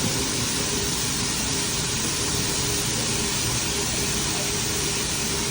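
Steady hiss with a faint even hum from a hibachi teppanyaki grill table, typical of the griddle's exhaust hood running while food cooks.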